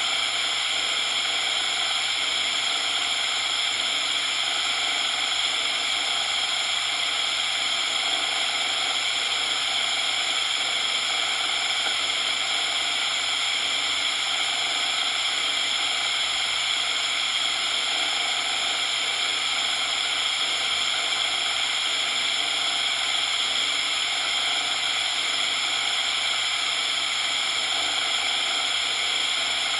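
Steady synthetic coloured noise: an even hiss, strongest in the upper-middle range and thin in the bass.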